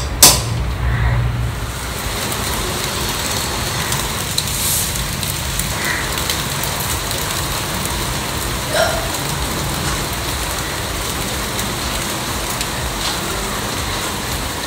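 Two sharp clacks at the very beginning, then steady rain falling and splashing on a wet concrete yard.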